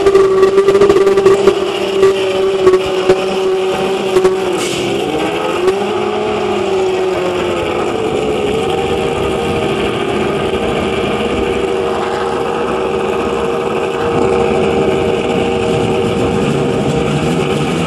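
Historic Formula One car engine running at a fast idle, with sharp cracks during the first few seconds. Its note dips and rises between about four and eight seconds in, then holds steady at a higher pitch.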